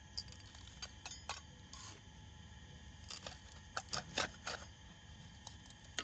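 Metal scoop scraping and digging through gritty, granular potting mix, with the grit rattling as it is tipped into a pot. A string of short scrapes, the loudest around four seconds in.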